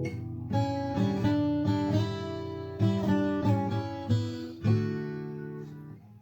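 Acoustic guitar music: a run of single picked notes and chords, each ringing out and fading.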